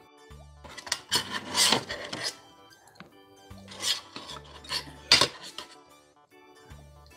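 Metal spoon scraping and clinking against a stainless steel divided food tray: a long scrape about a second in, then shorter, sharper scrapes around four and five seconds in.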